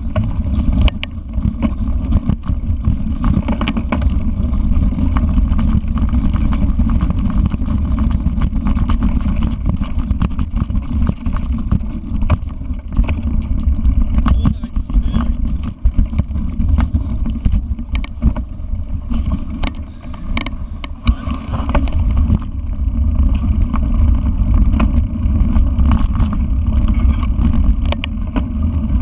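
Mountain bike ridden over railway ballast and sleepers, heard from a camera on the bike: a steady low rumble of riding noise with many sharp knocks and rattles from the bumpy track.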